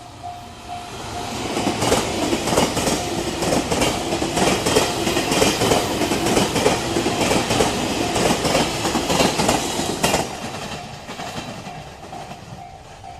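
A train passes over the level crossing, its wheels clattering over the rail joints, while the crossing's warning bell rings about twice a second. The train builds up over the first two seconds, stays loud until about ten seconds in, then fades away.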